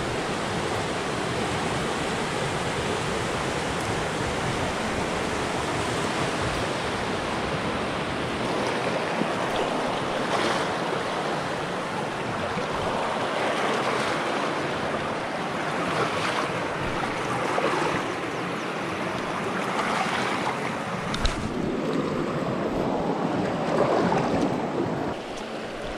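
Mountain river rushing over rocks and riffles: a steady, even rush of water.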